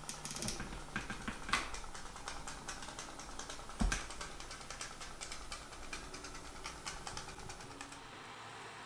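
Candle-heated steam engine of a toy pop-pop boat running: a rapid, uneven stream of small clicks from its drink-can-metal boiler, with one louder low thump about four seconds in.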